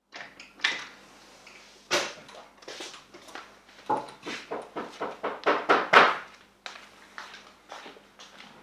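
Wooden interior door being handled, opened and closed, with a run of sharp knocks and thuds that grows louder about four to six seconds in. A faint steady hum runs underneath.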